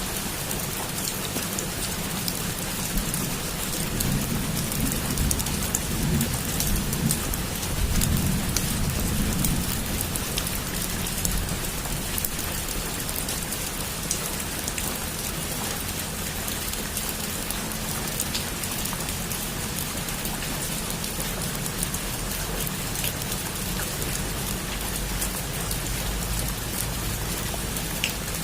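Heavy rain falling steadily, with scattered sharp drop impacts. A low thunder rumble swells and fades between about three and ten seconds in.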